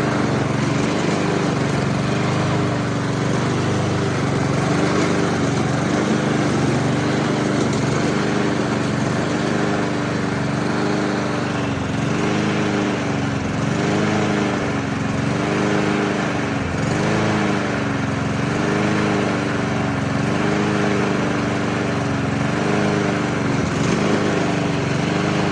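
Honda-engined Husqvarna walk-behind lawn mower running on its own after a long storage, its engine speed rising and falling in a slow, regular surge.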